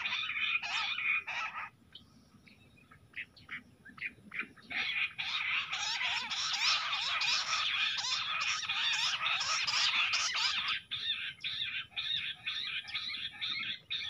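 A covey of jungle bush quails calling in rapid, high-pitched, overlapping notes. The calling drops to a few scattered notes about two seconds in, swells into a dense chorus about five seconds in, and breaks into shorter, evenly spaced calls about eleven seconds in.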